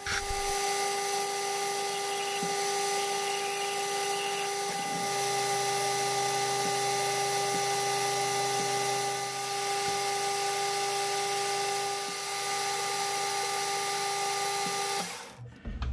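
Metal lathe running, turning a small piece of brass stock: a steady motor whine with several fixed pitches over a hiss. It stops about fifteen seconds in.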